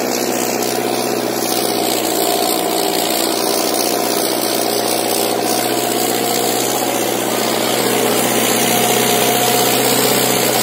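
Sonalika 750 tractor's diesel engine running hard and steady under heavy load while dragging a harrow through deep dirt, getting a little louder near the end.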